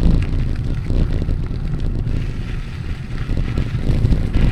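Wind buffeting the microphone while riding a bicycle, a steady low rumble.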